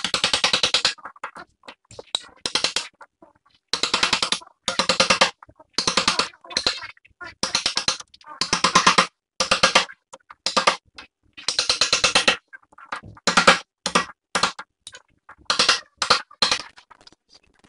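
Chisel driven into solid hardwood by quick hammer taps, in short bursts of rapid strikes with brief pauses between them, as a recess is cut across a crack in the wood.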